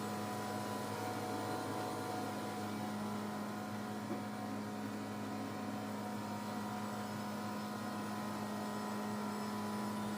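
Wood-Mizer band sawmill's engine running steadily, an even hum.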